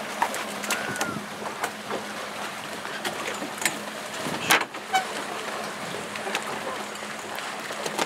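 Water lapping and slapping against the side of a small boat, with scattered sharp knocks and splashes over a low steady hum. A short chirping call of a few quick pitched notes comes about five seconds in.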